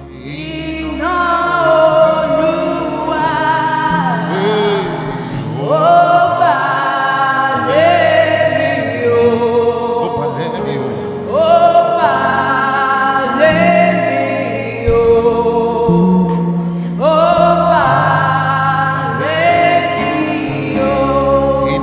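Gospel worship music with singing: voices sliding between long held notes over sustained bass chords.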